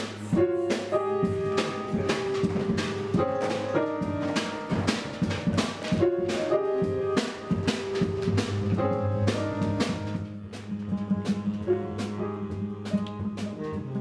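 Jazz quintet of saxophone, guitar, piano, upright bass and drum kit playing: a melody of held notes over a steady low bass line and frequent drum and cymbal hits.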